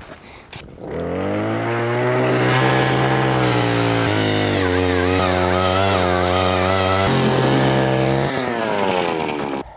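Gas-powered ice auger revving up about a second in and running at high speed as its bit drills through the ice. The engine dips briefly twice, then drops back and cuts off near the end.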